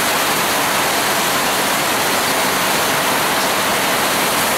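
Raw cashew size-grading machine running: a steady, loud rushing noise of nuts tumbling through its rotating drum sieve.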